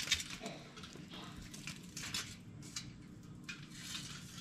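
Aluminum foil crinkling and rustling in a string of short crackles as a whole fish is handled and laid onto it.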